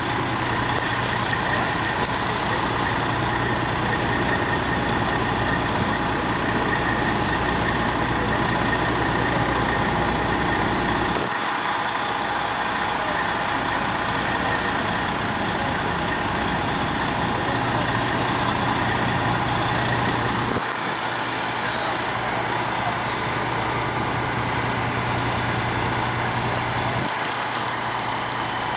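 Fire truck engine running steadily, a continuous drone with a steady hum; the low rumble under it cuts out suddenly about eleven seconds in and again twice later.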